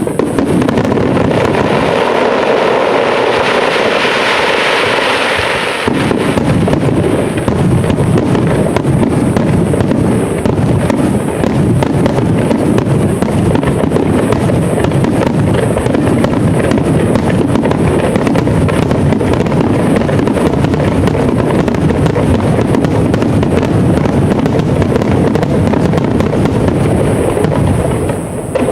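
Aerial fireworks bursting in a dense, continuous barrage of rapid reports. A bright crackling hiss rides over the bangs for the first few seconds, then the reports go on thick and fast, stopping abruptly at the end.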